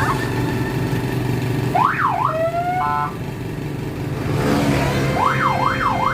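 Electronic siren-type alarm warbling, its pitch sweeping quickly up and down. It gives one short sweep about two seconds in, then repeats at about two and a half sweeps a second from about five seconds in. A steady low rumble runs underneath.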